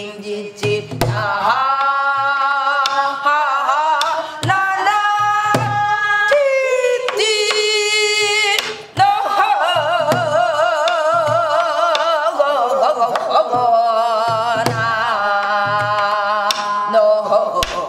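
Korean gueum, wordless vocal vocables sung as long held notes with a wide, wavering vibrato, over a steady beat of traditional drum strokes. It is a basic gueum piece for accompanying song-and-dance practice.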